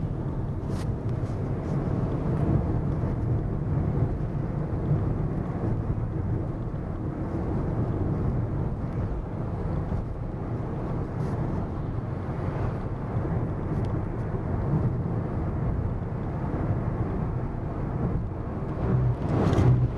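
Steady low rumble of road and engine noise inside a car's cabin cruising on a highway at around 110 km/h, with a few faint clicks and a short louder noise near the end.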